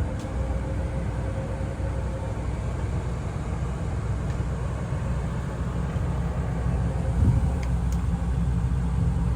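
A sailboat's inboard engine running steadily under way, a low even drone, with a single short knock about seven seconds in.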